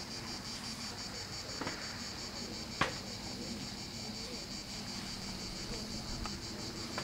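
Steady, high-pitched chirring of insects, with one sharp click about three seconds in.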